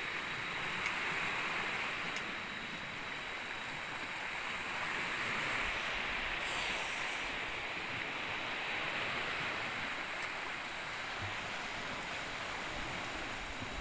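Steady rush of sea water and small waves, with a brief hiss about six and a half seconds in.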